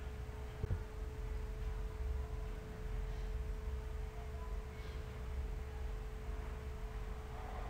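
A steady, thin, even-pitched hum over a low rumble, with a single click just under a second in.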